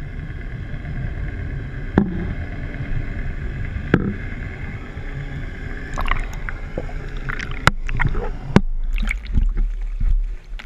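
Water sounds picked up by an underwater camera: a steady low rumble with a faint whine and a few sharp clicks, then from about six seconds in irregular splashing and bubbling as a hooked smallmouth bass thrashes at the surface and a landing net goes into the water.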